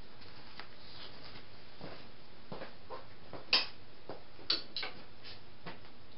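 Steady hiss with scattered light clicks and ticks, two sharper ones about three and a half and four and a half seconds in.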